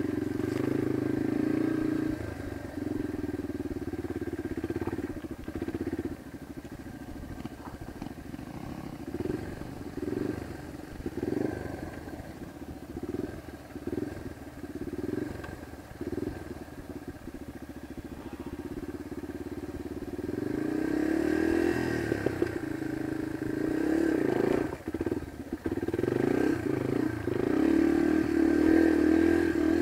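Yamaha dirt bike engine on single track. It runs steadily at first, then goes quieter and choppy with on-off throttle for a long stretch. About two-thirds of the way through it revs up with a rising pitch and runs harder.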